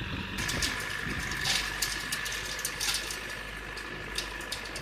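JCB 3DX backhoe loader's diesel engine running under load, with a steady high whine, as the backhoe bucket pushes into a clump of bamboo; irregular crackling and snapping of bamboo stems and leaves over it.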